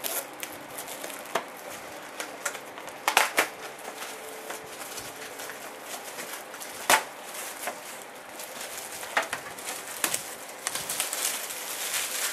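Plastic shrink wrap being torn and pulled off a cardboard box, in sporadic sharp crackles and snaps, then crinkling more densely near the end as the wrap is crumpled in the hand.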